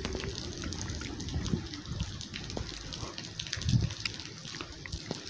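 Steady rain falling on a wet street, with many sharp ticks of drops landing close to the microphone. A low thump about three and a half seconds in.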